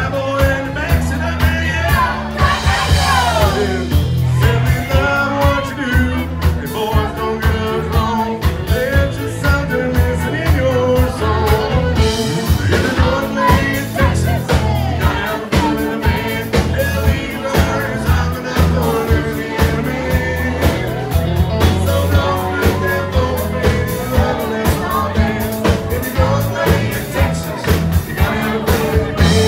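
Live country band music: a male lead singer over acoustic guitar, electric guitar, fiddle and drums, with a steady beat.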